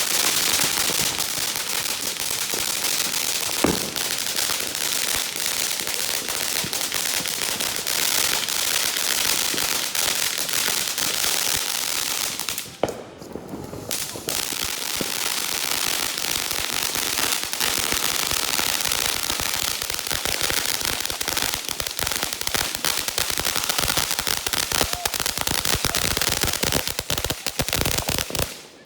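Fireworks and firecrackers crackling and popping in a dense, near-continuous rattle, with one louder bang about four seconds in and a short lull about halfway through.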